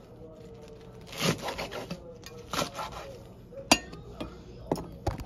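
Chef's knife slicing through a rolled bundle of leafy greens on a wooden cutting board: irregular scraping cuts and knocks of the blade on the board, the sharpest knock about three and a half seconds in.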